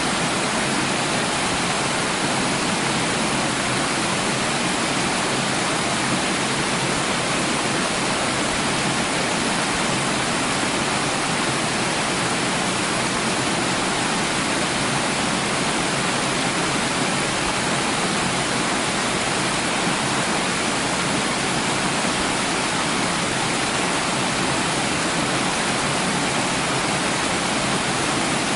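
Running water: a steady, even rush of water that does not change.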